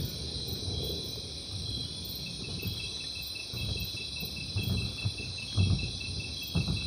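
Recorded jungle ambience: a steady chorus of crickets and other insects, with a rapidly pulsing insect call joining about two seconds in. Low rumbles come and go in the second half.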